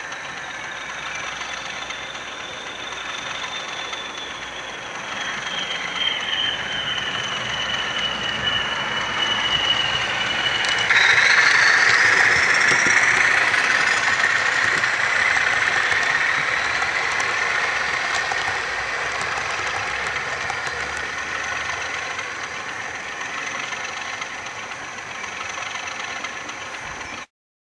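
DCC sound-decoder engine sounds from a model Class 40 diesel passing with a train of coaches: a whine like an English Electric turbocharger whistle over the engine note. The whistle sinks slowly at first, then jumps higher and louder about eleven seconds in, as the train goes by, and eases off again toward the end.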